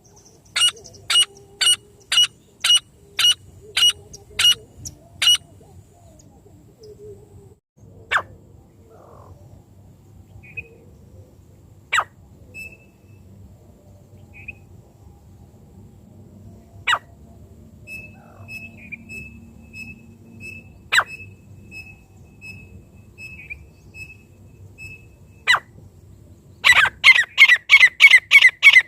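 Francolin (teetar) calls, the kind played to lure partridges: a run of about ten sharp, evenly spaced calls in the first five seconds, then single sharp notes every four seconds or so with faint chirps between. Near the end a loud, fast series begins at about three calls a second.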